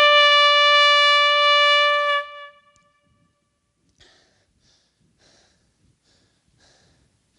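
A horn blown in one long, steady, loud note that cuts off about two seconds in, sounded as an alarm blast. Only faint small noises follow.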